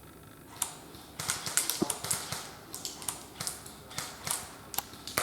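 Airsoft guns firing single shots as sharp clicks: a quick cluster about a second in, then spaced shots.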